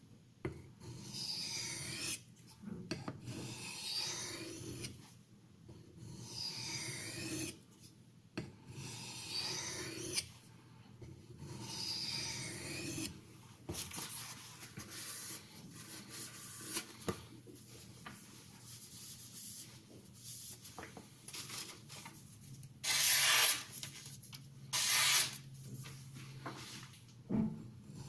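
Knife blade of 440C steel drawn over a fine, hard natural whetstone in light strokes under the knife's own weight, a soft rasping scrape about every second or two: the edge being finished with a micro-bevel. Near the end come two louder, harsher scrapes.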